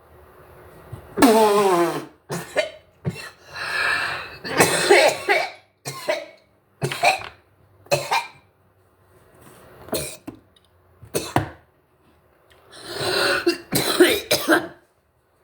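A person in a hard coughing fit after inhaling smoke: a dozen or so harsh coughs in clusters, with a strained, falling wheeze about a second in.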